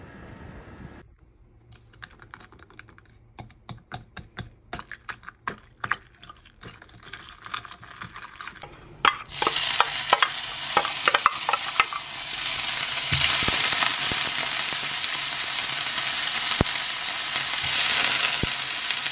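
Minced garlic frying in oil in a nonstick frying pan. Light scattered crackles give way about nine seconds in to a sudden loud, steady sizzle, which stays strong as shrimp go into the pan near the end.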